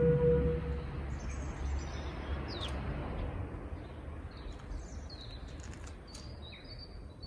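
A held brass note dies away in the first second, leaving quiet open-air ambience: small birds chirping now and then over a low steady rumble.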